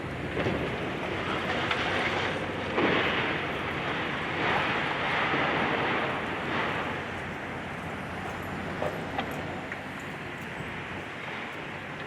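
Demolition work by a high-reach excavator: a continuous rumbling, crunching noise with several louder surges in the first half and a few sharp clicks later on.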